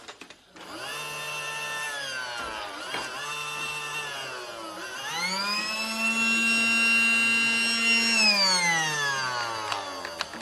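Small battery motor of a Casdon Dyson toy cordless vacuum cleaner whining as it runs. It dips and picks up twice, spins up to a higher pitch about five seconds in, then winds down near the end.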